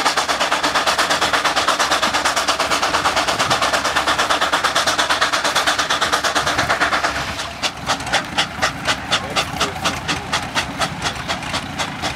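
Steam traction engine's exhaust chuffing in a fast, steady beat as it pulls a gang plow. About seven seconds in, the beat turns slower, with sharper, more separate chuffs.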